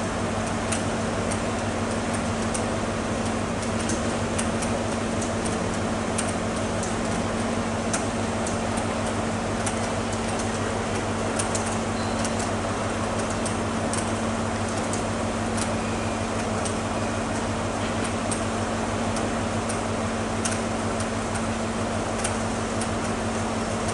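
Steady low hum of idling diesel train engines, its pitch unchanging, with scattered light sharp ticks over it.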